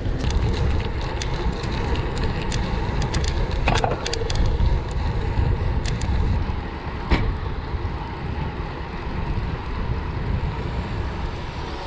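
Riding noise from a moving gravel bike: wind rushing over the mounted camera and tyres rolling on the trail, with scattered sharp clicks and rattles.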